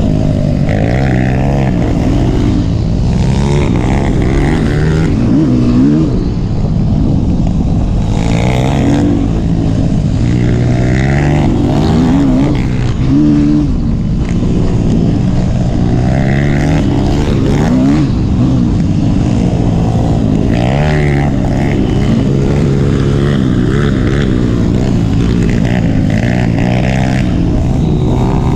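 Yamaha YZ250F four-stroke single-cylinder dirt bike engine riding along a trail, revving up and easing off over and over, its pitch rising and falling with the throttle and gear changes.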